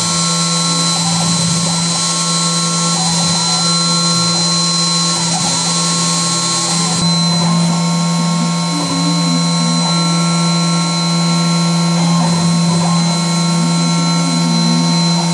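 Large CNC machine running: a steady hum and a high whine, with motor tones wavering up and down in pitch as it moves. A high hiss drops away about seven seconds in.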